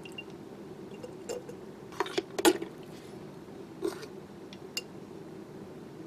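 Small squishes and light clicks of a plastic dropper pipette being squeezed and tapping against a glass mixing bottle while dispensing thinner, a few scattered ticks with the loudest cluster about two seconds in. A steady low hum runs underneath.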